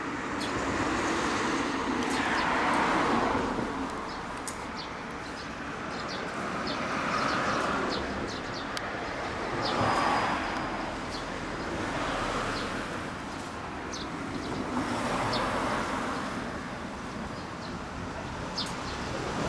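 Street traffic passing, rising and fading in slow swells every few seconds, with short high chirps scattered through.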